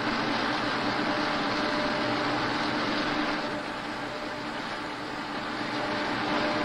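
Cylindrical grinding machine grinding a lathe spindle under a flood of coolant: a steady hiss with a low steady hum underneath.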